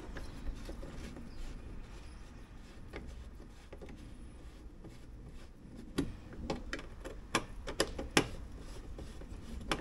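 A Torx T20 screw being tightened by hand into a plastic tail-light mounting ring: quiet handling at first, then a run of sharp clicks and taps in the second half, and one more near the end.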